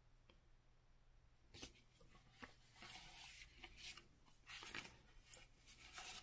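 Faint rustling and scraping of paper and card being handled, a small card slid into its translucent paper sleeve on a book page. It starts about a second and a half in as short, irregular rubs and crinkles.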